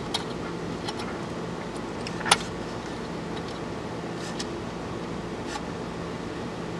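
Small clicks and taps of a resistor's wire lead and fingertips against a tube socket and metal chassis, with one sharper click about two seconds in, over a steady background hum.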